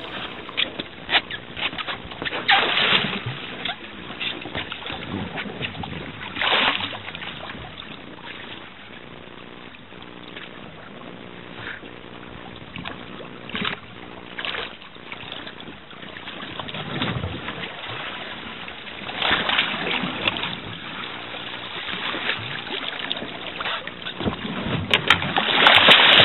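Water sloshing and splashing against the side of a fishing boat, with scattered sharp splashes, then a loud burst of churning splashes near the end as a hooked halibut thrashes at the surface.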